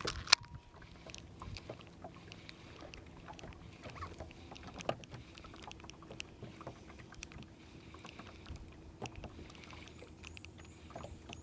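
Scattered light clicks and knocks in a fishing boat, with a sharp click about a third of a second in and another just before five seconds, over a faint steady hum.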